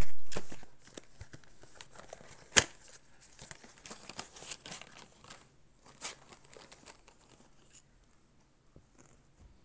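Close handling noise: irregular rustling and crinkling with a few sharp clicks, after a loud bump at the very start. The sharpest click comes about two and a half seconds in, and the sounds thin out over the last few seconds.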